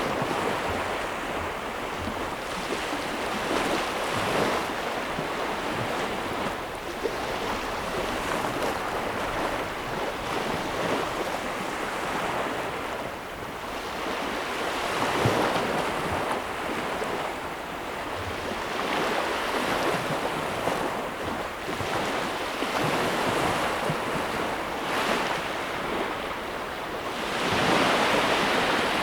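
Ocean surf: a continuous wash of waves that swells and eases every few seconds, loudest as a wave breaks near the end.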